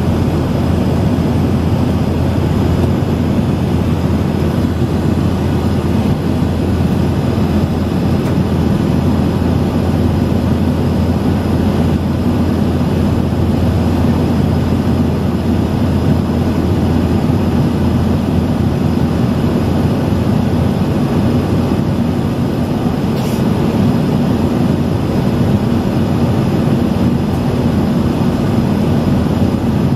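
Steady cabin noise of a jet airliner in flight: engine and airflow noise heard inside the passenger cabin, a loud, even, mostly low-pitched drone.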